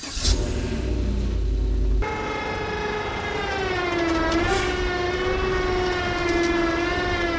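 A 12-volt electric trailer winch motor whining steadily as it pulls the chicken coop up the ramp under load, its pitch dipping briefly about four seconds in. Before that comes a low vehicle engine rumble.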